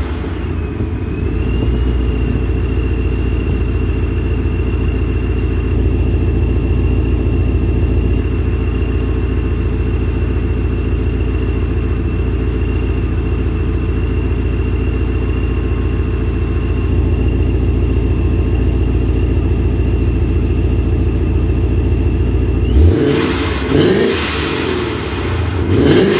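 Car engine idling steadily with a thin, steady high whine over it. About 23 seconds in it is revved a couple of times.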